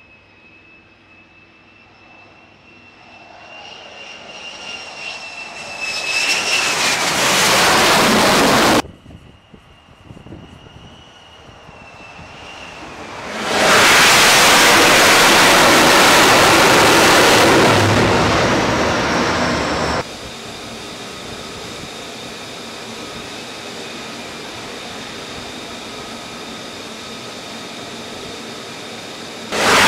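F-35C Lightning II jet engine, a high whine growing louder into a loud roar as the jet comes close, twice, each time cut off abruptly. After that comes a steadier, quieter jet roar from the aircraft flying at a distance.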